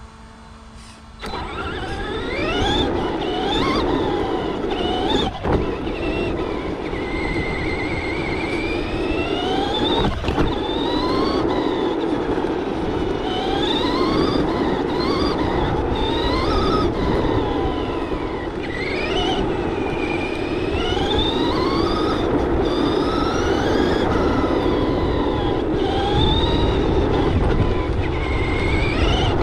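Electric motor and drivetrain of an RC short course truck whining, the pitch rising and falling again and again with the throttle, over a loud steady rumble of small tyres on rough pavement. It starts about a second in as the truck pulls away from a standstill.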